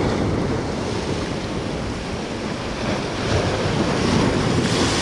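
Ocean surf breaking and washing over jetty rocks, a steady rushing wash that swells about three seconds in.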